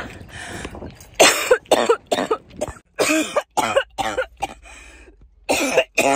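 A woman in a hard, uncontrollable coughing fit: a rapid run of over a dozen harsh, hacking coughs starting about a second in. Something is caught in her throat, and she can hardly breathe.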